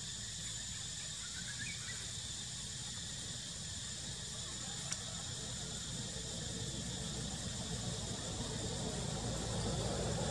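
Outdoor ambience: a steady high-pitched insect drone over low rumble, with one sharp click about five seconds in. The rumble grows louder near the end.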